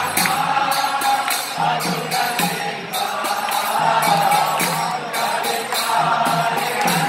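A crowd of devotees chanting a Hindu devotional kirtan together in unison. Metal hand cymbals clash in a quick, steady beat over the singing.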